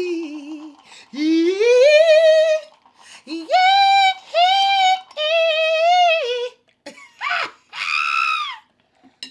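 A woman singing without clear words in a high voice: long held notes that slide up and down, in about six phrases with short breaks between them, stopping shortly before the end.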